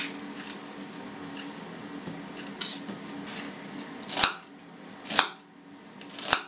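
Kitchen knife cutting through an onion onto a cutting board: a softer cut near the middle, then three sharp chops about a second apart.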